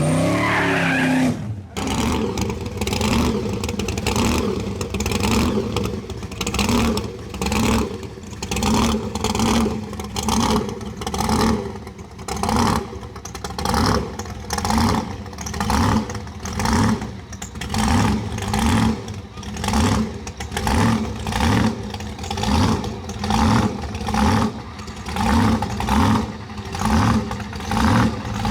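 A drag car's engine rises in pitch and cuts off sharply about a second and a half in, then is revved up and let fall about once a second, over and over, in a steady rhythm.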